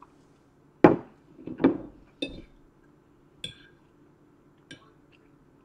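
A ceramic dinner plate set down on a stone tabletop, two loud knocks in the first two seconds, then a few lighter ringing clinks of a metal fork against the plate.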